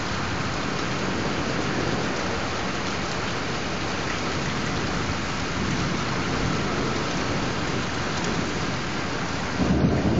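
Steady rain falling, an even hiss with no breaks. Near the end a low buffeting on the microphone comes in over it.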